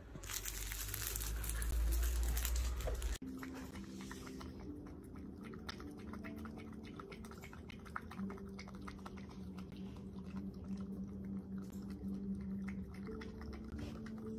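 Loud rustling and rumbling as a dachshund tugs on a fabric toy, cutting off abruptly about three seconds in. Then a dachshund puppy lapping from a metal bowl: a fast run of small wet clicks, over soft background music.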